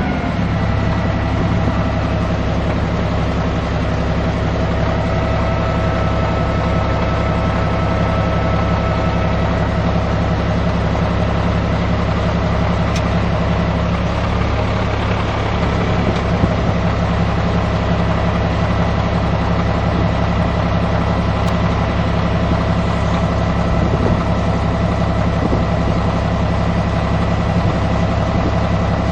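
Caterpillar D6C bulldozer's diesel engine running steadily at an even pitch.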